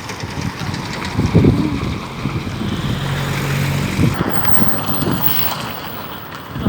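A motor vehicle passing with a steady low engine hum that swells and fades in the middle, over wind buffeting the microphone.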